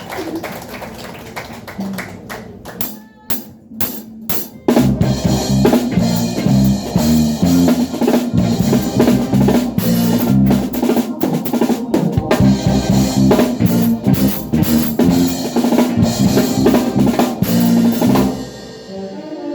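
Live band with a drum kit: after a few sharp clicks, the full band comes in about five seconds in and plays loudly, with kick drum, snare and a strong bass line. The music drops briefly near the end.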